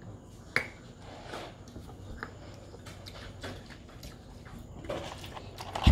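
Scattered light clicks and knocks of things being handled on a wooden dining table, with a sharp click about half a second in and a loud thump at the very end.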